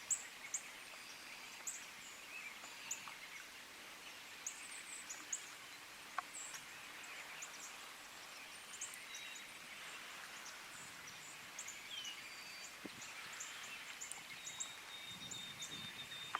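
Quiet outdoor ambience: a faint steady hiss with scattered short, high bird chips and chirps and a few thin whistled notes.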